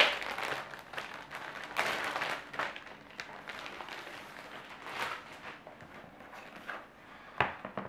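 Clear plastic protective bag crinkling and rustling as it is pulled off a laptop and set aside, with one sharper click near the end.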